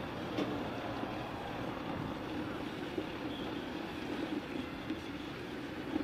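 Diesel engine of a Mercedes-Benz concrete mixer truck running steadily as the truck moves slowly on a construction site, with a few faint knocks.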